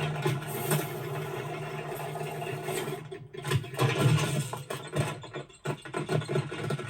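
Buzzing drone of a swarm of grasshoppers' wings in flight, an engine-like low buzz. It is steady for about three seconds, then wavers and briefly drops out a couple of times.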